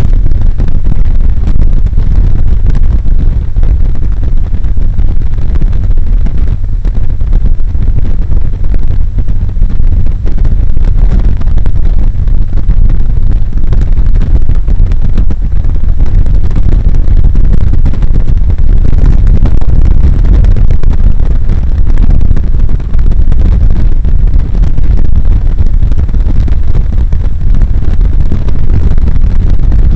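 Wind buffeting the microphone of a camera mounted on the outside of a moving Subaru Impreza WRX STI, mixed with tyre and road noise: a loud, steady low rumble.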